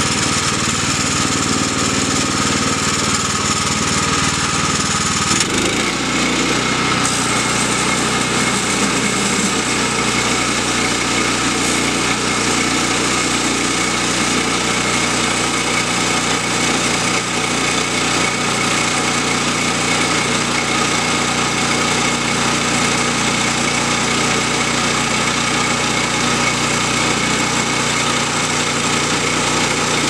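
Gasoline engine of a Woodland Mills HM122 portable bandsaw mill running steadily, its tone shifting about five seconds in.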